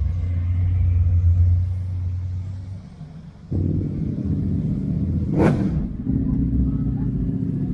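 Performance cars rolling past slowly one after another, engines running with a deep low rumble. A fresh engine note cuts in abruptly about three and a half seconds in as the next car comes by, and there is a brief sharp noise about two seconds later.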